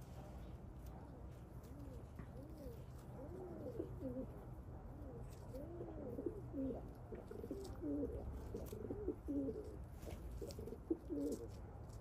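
Domestic pigeons cooing: a run of low rising-and-falling coos that grows louder and more frequent from about four seconds in and stops shortly before the end.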